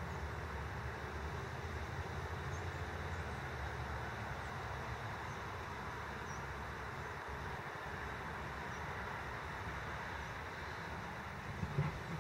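Outdoor wind noise: a low, uneven rumble of wind on the microphone over a steady hiss, with a short bump near the end.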